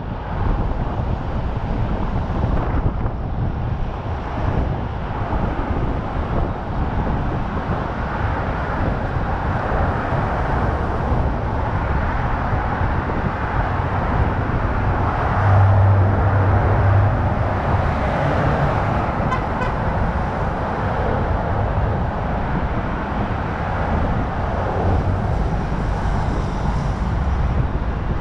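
Steady rush of wind and road noise from a vehicle driving on a busy urban expressway, picked up by a camera on its roof, with the sound of surrounding traffic. A low hum swells for a second or two about halfway through.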